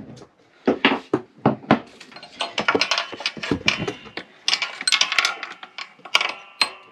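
Socket wrench on a long extension bar working a bolt inside a snowblower's drive housing: irregular metal clicks and clinks, with denser runs of clicking about halfway through and again about two thirds of the way in.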